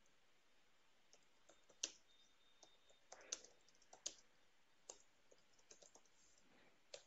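Faint computer keyboard typing: irregular, scattered keystroke clicks.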